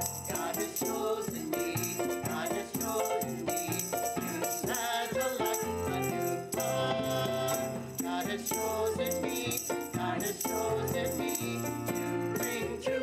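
Church music: a hymn sung by the congregation with instrumental accompaniment and a rattling hand percussion instrument keeping time.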